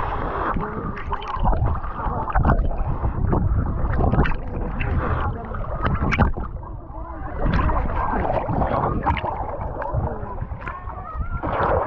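Sea water sloshing and splashing close to a handheld microphone as a person wades through it, with low rumbling buffeting on the mic.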